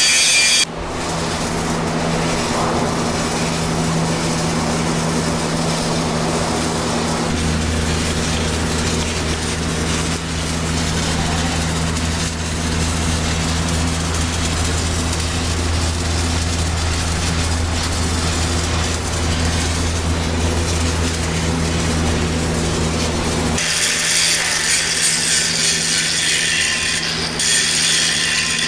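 Stick (SMAW) welding arc from a 7010 cellulosic electrode, crackling steadily over the hum of the welding machine as the capping pass is run on a pipe joint. Around twenty-four seconds in, the low hum drops away and a brighter hiss takes over.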